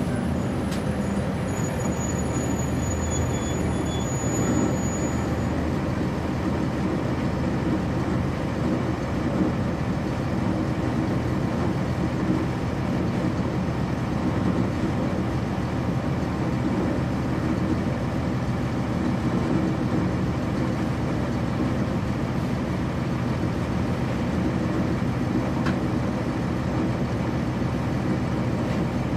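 On-board sound of a 1999 NovaBus RTS transit bus: its Cummins ISC inline-six diesel running steadily, heard from inside the cabin. A faint thin high whine sounds for a few seconds near the start.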